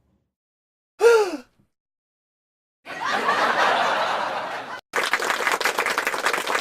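A string of short edited-in sound-effect clips with dead silence between them: a brief cry that falls in pitch, then about two seconds of breathy, laughter-like vocal sound, then a fast, even run of sharp strokes.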